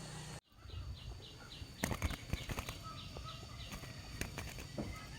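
A small trapped bird flapping and fluttering its wings, with a quick run of short chirps, about five a second, near the start, then irregular sharp knocks and flutters.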